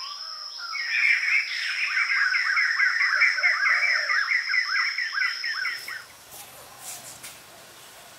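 Bird chirping in a fast run of repeated rising-and-falling notes, over a steady high-pitched tone; both cut off suddenly about six seconds in, leaving faint background noise.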